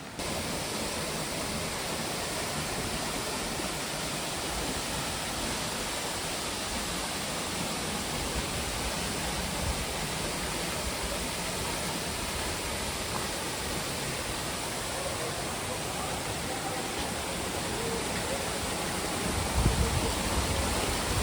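Waterfall: a steady rush of falling water. Near the end, a brief low rumble of wind buffeting the microphone.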